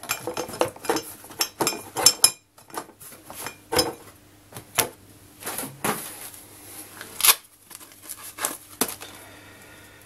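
A flashlight and glass and plastic bottles being handled and set into a cardboard box, knocking and clinking against each other and the box in a string of irregular clicks and knocks.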